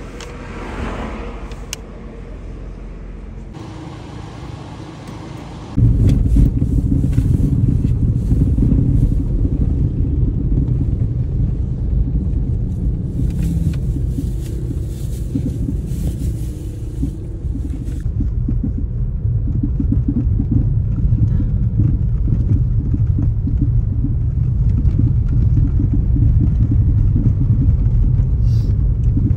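Low, steady rumble of a small car driving on the road, heard from inside the cabin of a Kia Picanto. The rumble steps up sharply about six seconds in and stays loud.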